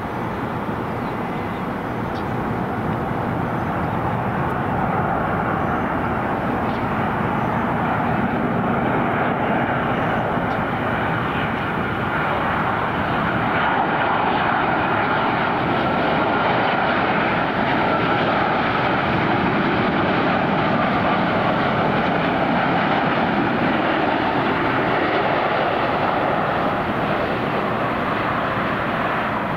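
Boeing 787 airliner's twin jet engines on final approach, a steady roar that grows louder over the first few seconds as the jet nears and then holds as it descends to the runway.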